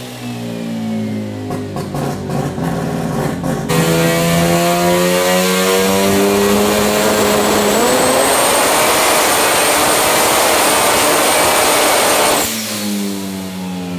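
Turbocharged 13B two-rotor rotary engine making a pull on a hub dyno. Revs climb steadily with sharp crackles in the first few seconds, get much louder about four seconds in and hold full throttle until the throttle snaps shut near the end, when the revs fall away.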